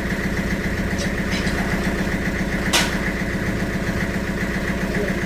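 An engine idling steadily at an even pitch, with one sharp knock about two and a half seconds in.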